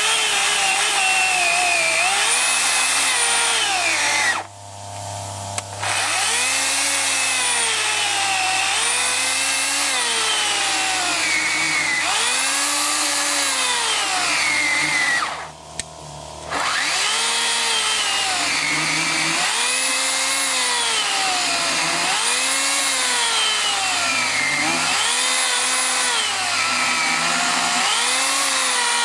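Makita UC4020A corded electric chainsaw with a 40 cm bar cutting through a thick log, its motor pitch rising and falling about every two seconds as the chain bites into the wood and frees again. The saw cuts out briefly twice, about four seconds in and about fifteen seconds in, then runs on.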